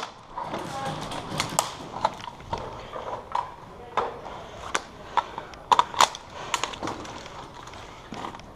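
Footsteps crunching on gravel and debris, a sharp crunch about every half second as a player moves on.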